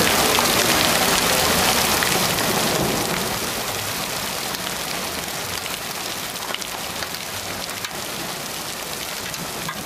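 Steady rain falling on wet pavement, an even hiss that drops a little in level about three seconds in and then holds steady.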